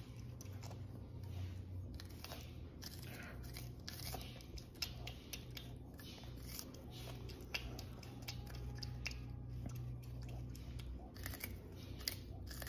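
Baby prehensile-tailed porcupine chewing corn off the cob close to the microphone: an irregular run of small crunches and clicks as it bites and grinds the kernels, over a steady low hum.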